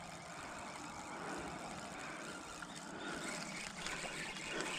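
Steady outdoor background noise with no single clear source, growing a little louder in the second half with a few faint ticks.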